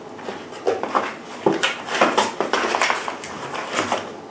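Paper inserts and packaging being handled: quick, irregular rustling and crinkling with small knocks.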